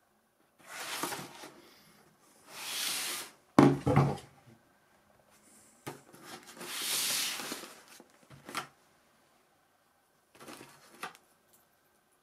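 Cardboard box being handled on a table: several long scraping, rustling swishes of cardboard, two sharp knocks about three and a half and four seconds in as things are set down, and a few light clicks later on.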